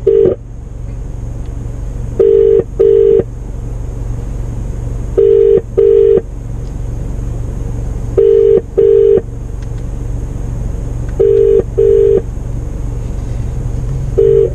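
British-style double-ring ringback tone of an outgoing phone call still waiting to be answered: pairs of short rings about every three seconds, over a steady low hum in the car.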